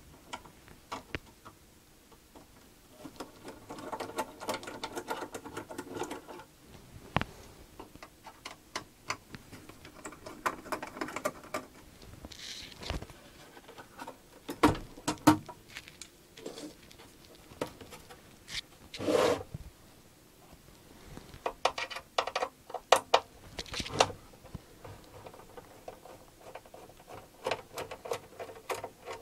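A screwdriver working the screws and hands handling the case of a bench function generator as its cover is taken off: a run of small clicks, scrapes and knocks. There is a louder knock about two-thirds of the way through and a quick cluster of clicks soon after.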